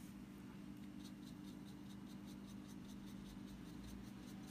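Light, quick strokes of a paintbrush on paper, several a second, working water into soft-pastel colour, over a low steady hum.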